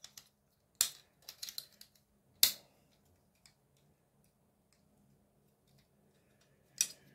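A few sharp plastic clicks and knocks as a hard-drive carrier for an HP ProLiant MicroServer Gen8 and its latch are handled and worked. The carrier does not yet seat in its bay. The loudest click comes about two and a half seconds in, and one more comes near the end.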